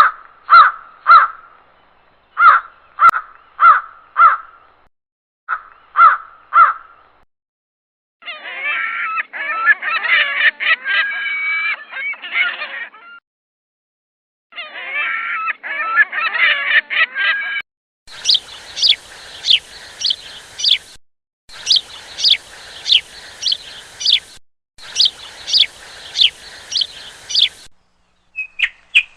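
Bird calls in a run of separate clips: first a series of short honking calls, about two a second, then two stretches of dense, overlapping flock chatter, then three blocks of quick, sharp falling chirps repeated in a steady pattern.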